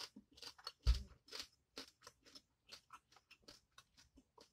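Close-miked chewing of a mouthful of spicy boiled seafood: wet smacks and small crunchy clicks at an irregular pace, with one louder thump about a second in.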